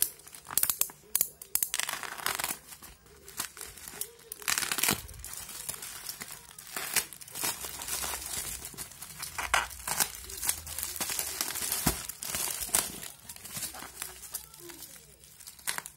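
Plastic packaging crinkling and rustling in irregular bursts, with some tearing, as a plastic courier mailer bag is opened and bubble wrap is pulled out.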